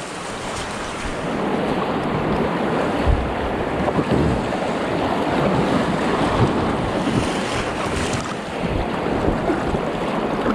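Fast river water rushing steadily around a small inflatable boat in rough water, with low wind buffeting on the microphone.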